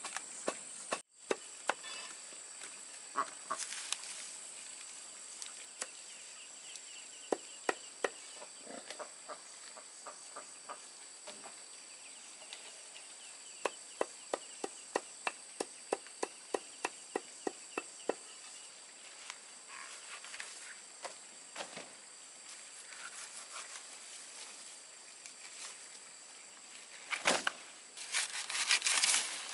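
Steady high-pitched insect chorus with a string of sharp knocks, including a run of them at about two a second midway, and a louder, noisier clatter near the end.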